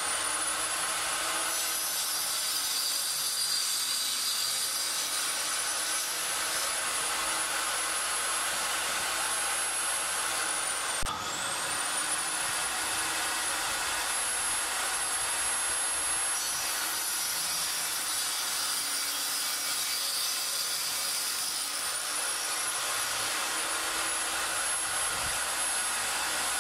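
Table saw running, its circular blade cutting through an MDF board with a steady high whine over the noise of the cut. The whine sags in pitch for a few seconds twice while the blade is loaded, and there is a brief break about eleven seconds in.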